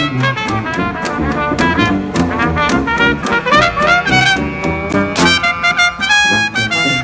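Jazz or swing music with brass playing over a steady beat.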